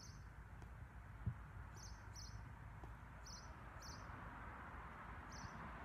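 Faint outdoor ambience: a small bird giving short high chirps, about six, irregularly spaced, over a low steady rumble, with one soft low thump about a second in.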